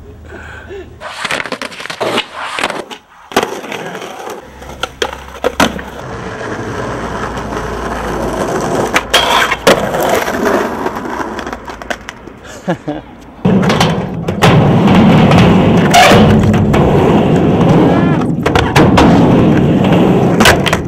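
Skateboard wheels rolling over concrete, broken by several sharp clacks and slaps of the board hitting the ground. From about two-thirds of the way in, the rolling turns loud and steady as the board carves a concrete bowl.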